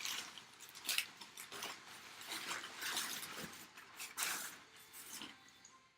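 Rustling and scraping of packaging as items are handled and pulled out of a box, in irregular short bursts.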